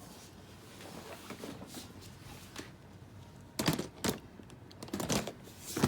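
A few sharp clicks and knocks from an aluminium makeup train case being handled, starting about three and a half seconds in after a quiet stretch.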